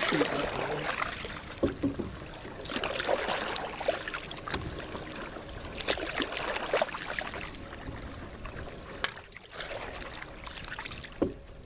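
Paddles dipping and pulling through lake water in repeated strokes, a swish and trickle of water with each stroke and occasional light knocks.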